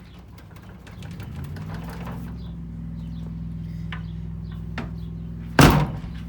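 An engine idling steadily, its low hum coming up over the first couple of seconds and then holding. Near the end, a single loud thump.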